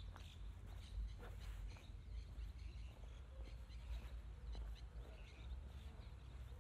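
Footsteps on dry dirt, about two a second, over a low wind rumble on the microphone, with faint bird chirps.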